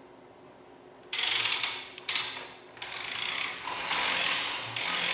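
Aerosol cleaner spraying in several short hissing bursts. The first starts suddenly about a second in, and the spray comes on and off four times.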